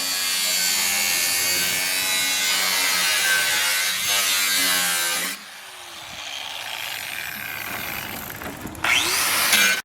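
Power saw cutting through a pickup's steel truck bed. It runs loud and steady for about five seconds, goes quieter for a few seconds, then cuts loud again briefly near the end.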